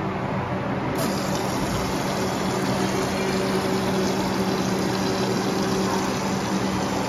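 Automatic-flush ceramic urinal flushing, water rushing steadily down the porcelain; the rush starts abruptly about a second in, over a steady low hum.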